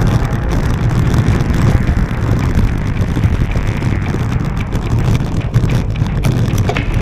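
Wind rushing over the microphone of a GoPro on a cyclocross bike being ridden, a steady low rumble with scattered clicks and knocks from the bike over rough ground.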